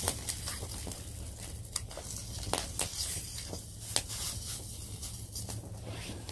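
Irregular sharp pops and crackles from a wood fire with bacon frying in a skillet over it, over a steady low hum.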